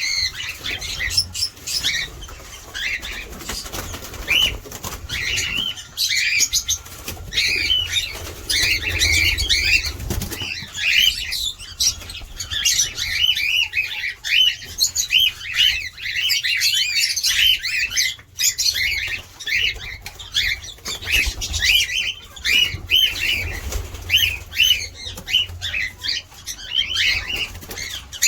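Flock of cockatiels chattering, with many short, arching chirps overlapping in quick succession.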